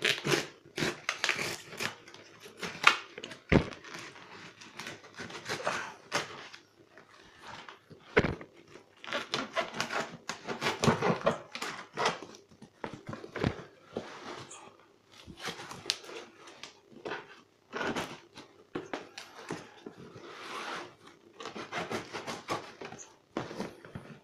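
Knife slitting packing tape and plastic stretch wrap on a cardboard shipping box, with irregular scraping, tearing and crinkling as the cardboard flaps are worked open, and a few dull knocks of the box being handled.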